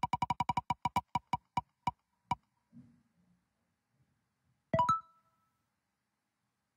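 Spinning-wheel picker sound effect: rapid ticks that slow down and stop about two seconds in as the wheel comes to rest, then a short bright chime near the five-second mark that signals the chosen result.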